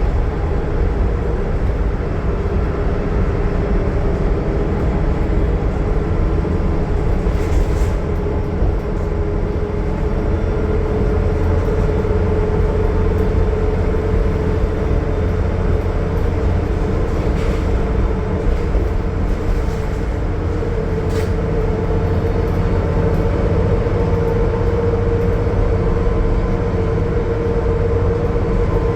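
A 2020 Gillig Low Floor transit bus's Cummins ISL9 diesel running steadily at highway cruise, with a low drone and road noise under a steady mid-pitched whine that swells a little twice along the way.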